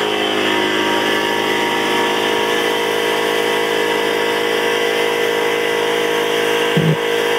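Tormach PCNC 1100 CNC mill roughing a steel block with an end mill under high-pressure flood coolant: the spindle runs at a steady pitch over the hiss of the coolant spray and cutting. A short thud sounds near the end.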